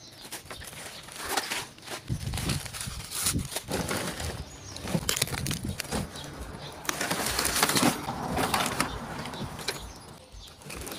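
Handling noise from a plastic air-cooler body being moved about on a heap of rubble and plastic sacks: irregular knocks, scrapes and the crunch and rustle of debris, busiest near the middle.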